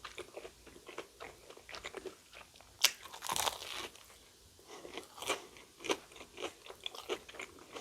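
A person biting and chewing a battered, fried Korean corn dog: irregular crunches and mouth clicks, with one sharp crunch just under three seconds in.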